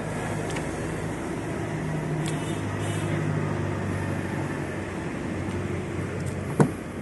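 Steady low mechanical hum, with one sharp click near the end as the Hyundai Creta's door latch is pulled open.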